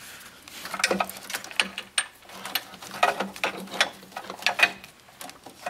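Plastic wiring connectors and corrugated wire loom being handled, giving many irregular small clicks and rattles over a faint steady hum.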